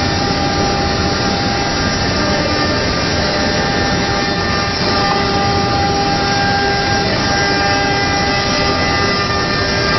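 CNC router for door and window making running steadily: an even mechanical noise with several steady whining tones over it.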